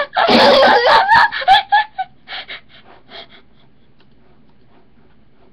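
A boy laughing hard and loudly, in breathy bursts that thin out and stop after about three seconds.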